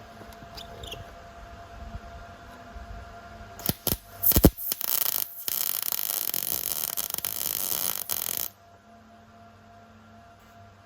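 Electric arc welding on steel brackets: a few short tacks about four seconds in, then a continuous crackling weld of about four seconds that cuts off sharply.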